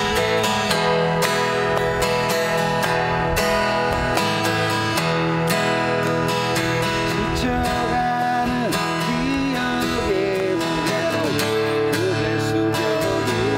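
Acoustic guitar strummed in a steady folk-pop rhythm. A man's voice starts singing in Korean a little past halfway through.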